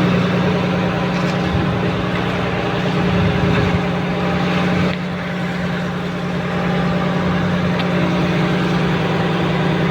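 A fishing boat's engine running steadily with a strong low hum, dropping a little in level about five seconds in.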